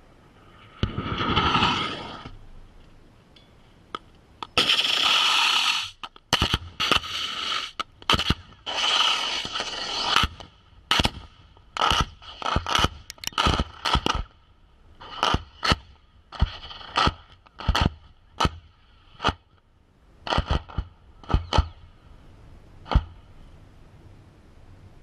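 30mm rounds from an A-10's GAU-8 Gatling gun striking the ground around a target tank. There are dense, continuous bursts about a second in, around five seconds and around nine seconds, then many separate sharp cracks that come fast at first and thin out toward the end.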